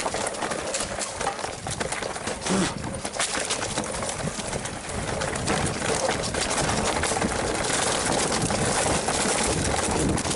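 Mountain bike rolling fast down a rough trail: tyres on dirt and loose stones, with a dense, irregular clatter of knocks from the bike.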